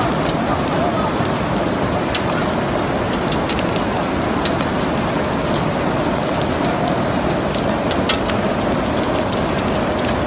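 Heavy rain mixed with small hailstones falling onto a wet marble floor: a steady hiss of rain with scattered sharp ticks of hailstones striking the stone.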